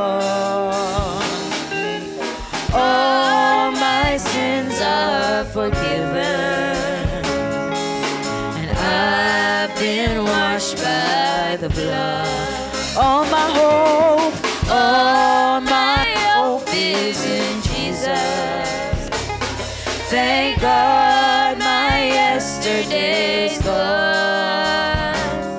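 Women singing a gospel praise song into microphones, backed by a drum kit and band.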